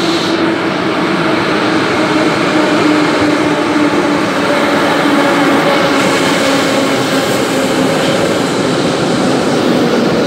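Moscow Metro 81-717/714 'nomernoy' train pulling into the platform: a loud, steady rumble of wheels on rails with a motor tone that slowly falls in pitch as the train slows.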